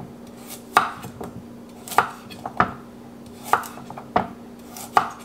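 Chef's knife cutting carrot into small oblique pieces on a wooden cutting board: about seven separate sharp knocks of the blade hitting the board, at an uneven pace of roughly one every half second to a second.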